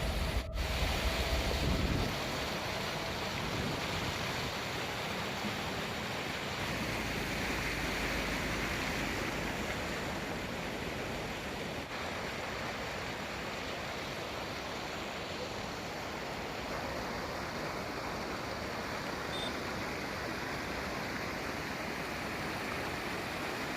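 Steady rushing noise with no distinct events, of the kind made by running water or wind across the microphone. A brief click sounds right at the start.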